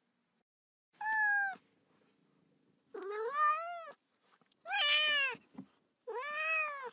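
A domestic cat meowing four times: the first call short, the others drawn out and rising and falling in pitch; the last one cuts off suddenly.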